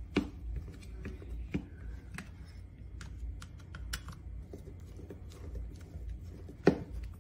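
Light, scattered clicks and taps of a small screwdriver and plastic parts as the scooter's LCD display board is screwed into its plastic handlebar housing, with one sharper knock near the end.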